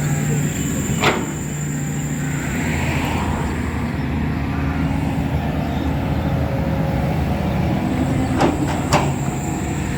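Road traffic and engines running steadily, with a sharp knock about a second in and two more close together near the end.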